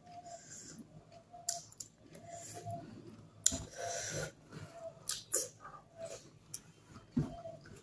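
Close mouth sounds of a person eating by hand: chewing and lip smacking, heard as a string of short smacks and clicks, the loudest about three and a half seconds in.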